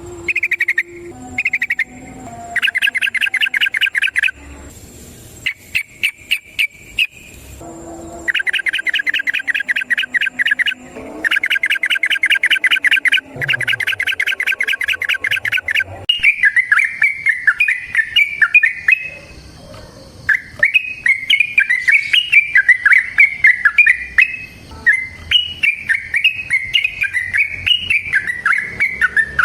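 Yellow-vented bulbul (trucukan) singing loudly: blocks of fast, even chattering notes in the first half, then a long run of bubbly warbled phrases from about halfway through.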